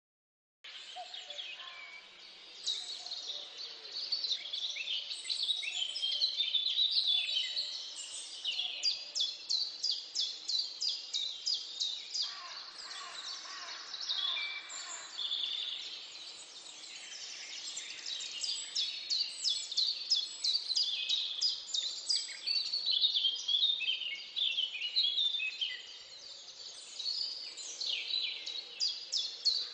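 Several songbirds singing and chirping together, with runs of fast repeated notes, starting abruptly just after the beginning. A brief hiss joins in about twelve seconds in.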